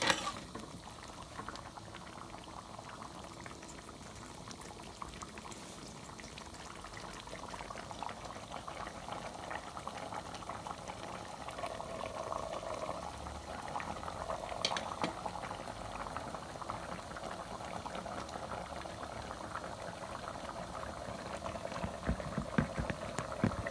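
Coconut-milk curry of jengkol and cassava leaves simmering and bubbling in a wide pan, a steady crackle. A sharp clack of the spatula on the pan comes right at the start, and a few knocks of the pan lid near the end.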